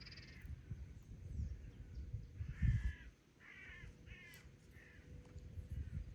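A bird calling outdoors: a quick run of about four short calls, each under half a second, starting a little over two seconds in, with a fainter call near the end.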